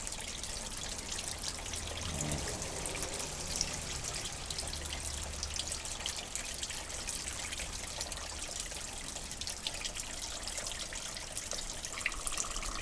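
Green engine coolant draining out of a radiator, trickling and splashing steadily into a catch container as the cooling system is emptied.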